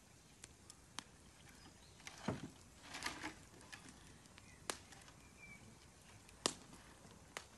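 Split firewood logs knocking and clattering as they are handled and stacked on a woodpile: a few sharp wooden knocks, with a longer clatter and rustle about two to three seconds in.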